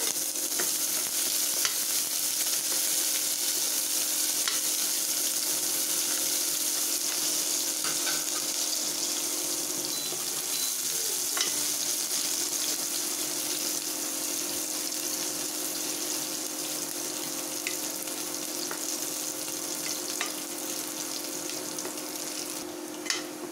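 Chopped onion and cumin seeds sizzling steadily in hot oil in an aluminium pressure cooker, stirred with a plastic spoon that scrapes and ticks against the pot now and then. A steady low hum runs underneath.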